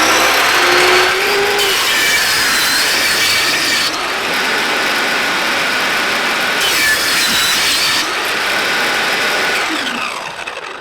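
Power saw ripping a narrow strip from an acacia board: the motor runs loud and steady while the blade cuts through the wood, then spins down near the end.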